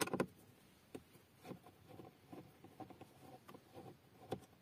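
Phillips screwdriver turning out a small screw from plastic car trim: faint scratchy ticks and clicks as the driver turns, with a few sharper clicks at the start, about a second in and near the end.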